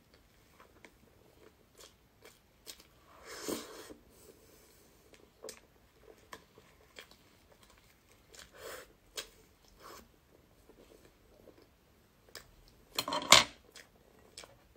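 Close-up mouth sounds of eating soft matcha cream box cake: wet chewing and small lip clicks, with a metal spoon working in a plastic container. There is a louder mouthful sound about three and a half seconds in and the loudest one about a second before the end.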